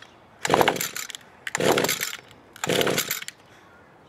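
Echo SRM-230 string trimmer's 22.8 cc two-stroke engine pulled over by its recoil starter three times, each pull a short rasping burst, without starting. The warm engine, pulled with no choke, fails to catch, and the owner concludes it needs a little choke.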